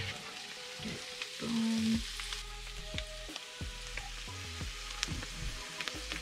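Food sizzling in a hot pan on a small stove, with a few light clicks of a utensil against the pan.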